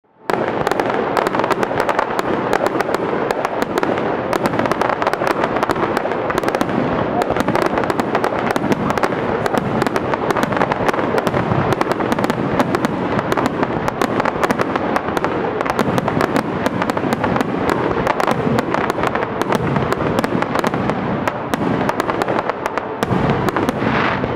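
Fireworks display: a dense, unbroken barrage of bangs and crackling from aerial shells and rising comets, many reports overlapping with no pause.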